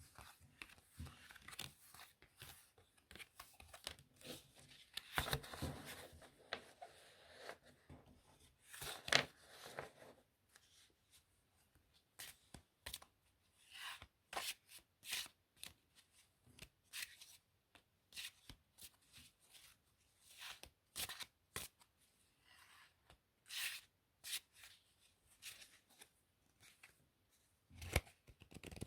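Playing cards handled and shuffled close to the microphone: a quick run of card rustles and slaps in the first ten seconds, then single taps and short rustles spaced apart.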